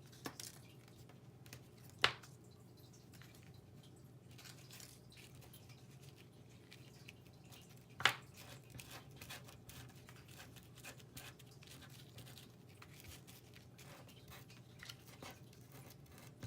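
Hands handling card pieces and trim ribbon on a craft table: faint rustling and small taps, with two sharp clicks about two seconds in and again about eight seconds in, over a steady low hum.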